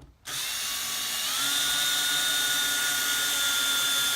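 Power drill running at speed for about four seconds, backing a misplaced screw out of the wood. Its whine steps up in pitch about a second in, then holds steady until it stops.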